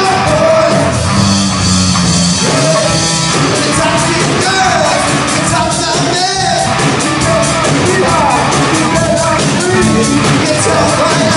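Live rock band playing loud and steady: electric guitar, drum kit and keyboard, with a singer's voice over them.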